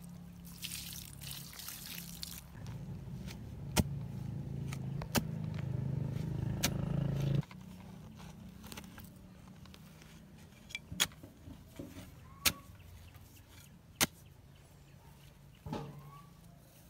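A motor runs with a low, steady hum that grows louder and then cuts off abruptly about seven seconds in. A brief hiss comes near the start, and scattered sharp clicks and knocks follow.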